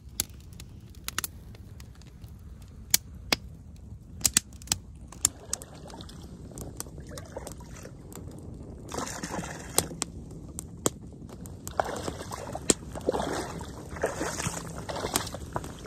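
Campfire crackling, with sharp pops scattered throughout. From about nine seconds in, shallow water sloshes and splashes in stretches as a person in waders wades through it.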